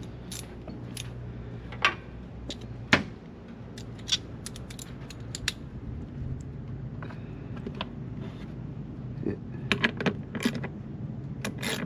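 Small metal bolts and hand tools being handled under the hood: scattered metallic clicks and clinks, the sharpest about three seconds in and a quick cluster near the end, over a low steady hum.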